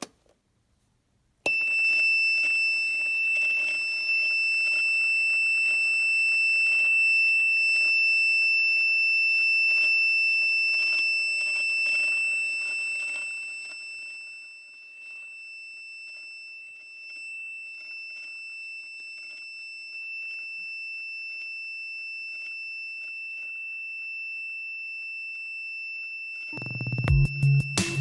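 Electronic alarm buzzer of a DIY science kit circuit sounding one steady, high-pitched continuous tone. It switches on abruptly, then drops to a lower volume about halfway through. Music comes in near the end.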